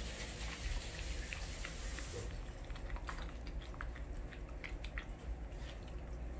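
Golden retriever puppy eating from a glass bowl: chewing with irregular light clicks of food and teeth against the glass, several a second.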